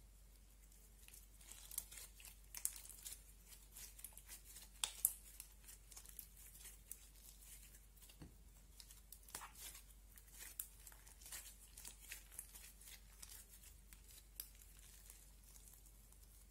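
Clay slime being kneaded, folded and stretched by hand, giving irregular sticky clicks and crackles that start about a second in and thin out near the end.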